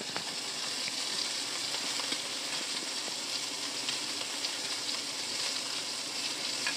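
Chunks of raw chicken sizzling steadily in hot oil in a skillet, with a few light clicks of tongs as the pieces are turned.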